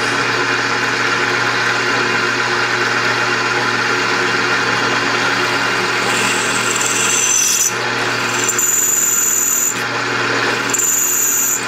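Drill press running with a small twist drill cutting into a hard cast-iron cylinder head. About halfway through, the bit gives three high-pitched squeals, the sound of the drill rubbing rather than cutting in iron that is too hard for it and of the bit going dull.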